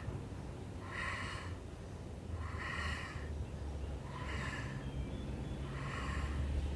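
A woman's forced exhalations, sharp breath puffs through the mouth about every second and a half, four in all, in rhythm with the alternating leg lowering of a core exercise; the forced exhale is meant to engage the transverse abdominis.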